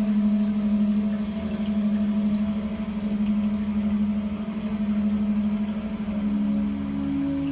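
Plant-music synthesizer holding one low, wavering note with a slow pulse over a soft hiss. A higher note comes in near the end.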